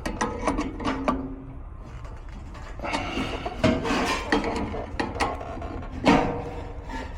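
Ratchet wrench clicking as a gear puller is tightened down to draw a furnace blower wheel off a stuck motor shaft, in uneven runs of clicks with some metal scraping.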